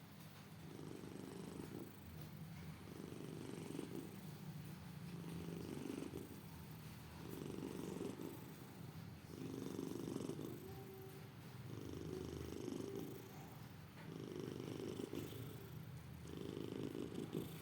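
Domestic cat snoring, a rumbling breath coming about every two seconds in an even rhythm.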